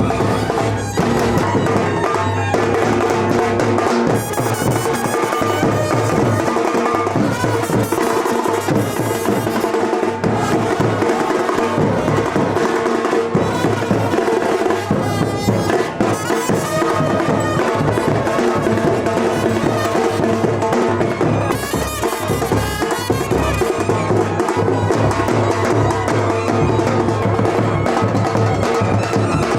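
Loud Indian music with a steady drum beat and sustained melodic tones.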